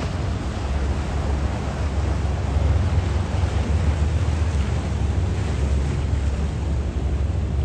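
Wind buffeting the microphone as a steady low rumble, over the hiss and wash of choppy harbour water.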